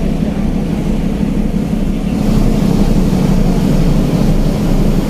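Large car ferry under way, a steady low rumble from the ship.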